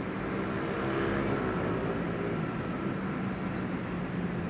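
Twin jet engines of an Airbus A330-300 taxiing at low power: a steady hum with a high whine, a little louder about a second in.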